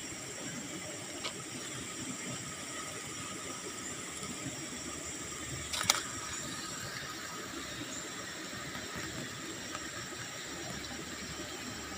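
Steady hiss of outdoor background noise with faint, thin, steady high-pitched tones running through it. A small click comes early and a sharp click, the loudest sound, about halfway through.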